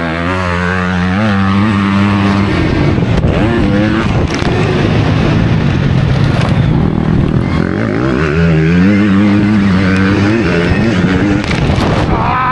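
Onboard sound of dirt bikes riding a motocross track, ridden on a Stark Varg electric motocross bike behind another bike: a steady rush of wind and track noise, with a motor note that rises and falls with the throttle and a few sharp knocks.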